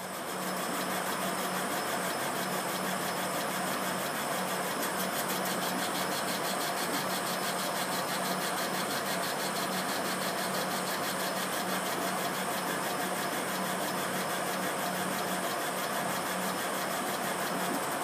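Laser cutter/engraver running: a steady whirring hum of its fans and motors, with a fast, even pulsing as the laser head sweeps back and forth over the plastic sheet.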